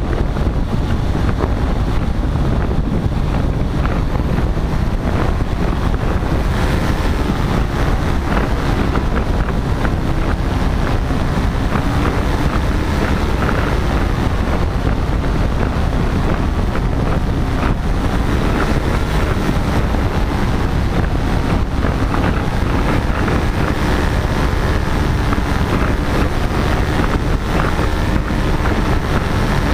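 Heavy wind rumble on the microphone in flight, with a paramotor's engine and propeller running steadily underneath, its pitch shifting slightly now and then.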